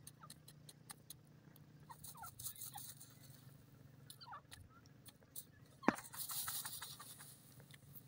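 Francolin (teetar) giving a few faint, short soft call notes among light scratching clicks, then a sharp click about six seconds in followed by about a second of rustling in the dust.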